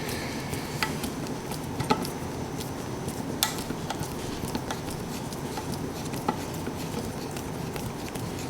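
Scattered light clicks and taps of metal parts being handled: a microwave magnetron and its thermostat being fitted together, over a steady background hiss.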